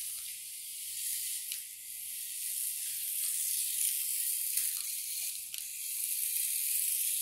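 A steady high hiss that swells and fades in level, with a few faint ticks.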